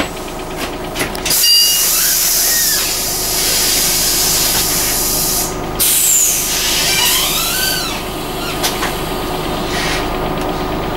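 Scania N94UA OmniCity bus heard from inside while stopped: the engine idles under long hisses of compressed air from the bus's air system. The first hiss starts about a second and a half in, and a second follows at about six seconds.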